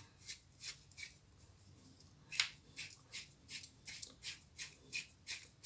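T-handle hex key turning an M10 grub screw into a steel lathe chuck jaw: a run of light, short clicks about three a second as the key is twisted round by hand, pausing for about a second near the start.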